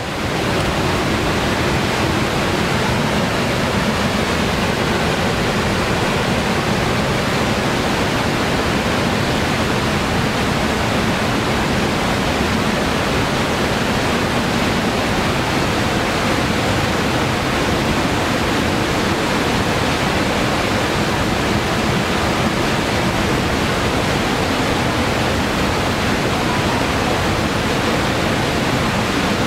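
River rapids at a waterfall, whitewater rushing over rocks in a loud, steady, unbroken rush of churning water.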